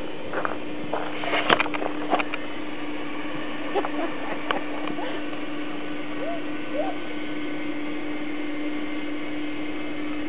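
Electric air pump running steadily with a constant hum, inflating an air mattress. A few sharp clicks and knocks come in the first couple of seconds.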